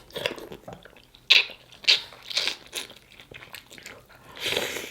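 Close-miked eating sounds of a seafood boil of mussels in spicy sauce: chewing with a series of sharp clicks and a crinkling, rustling stretch near the end.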